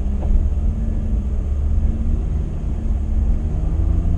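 Car's engine and tyres in snow, heard from inside the cabin as a steady low rumble, with the car struggling for traction on the snow-covered road.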